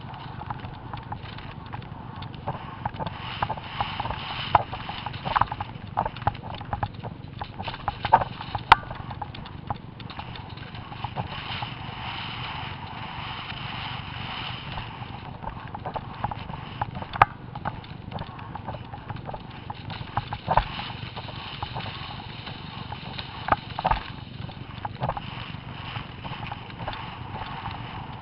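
Event horse galloping cross-country, heard from the rider's helmet camera: hoofbeats over a steady rushing noise, with a few louder sharp knocks.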